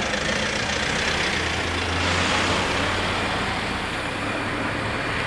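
Cars pulling away over a level crossing just after the barriers have lifted: engines and tyre noise, with a low engine hum strongest during the first half.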